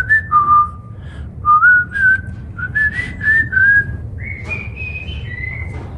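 A man whistling through pursed lips with a hand cupped beside his mouth: a run of short, slightly sliding notes that climbs higher in the second half, ending on a few longer notes.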